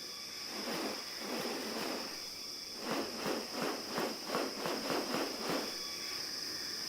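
Rainforest ambience: a steady high-pitched insect drone. Over it comes a run of soft, regular scuffing sounds, about three a second, in the middle of the stretch.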